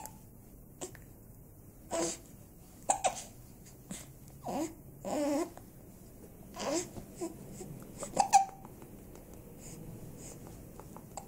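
Hiccups: sharp, short hic sounds at irregular intervals of about one to two seconds, some with a brief voiced catch, the loudest pair about eight seconds in, then quieter.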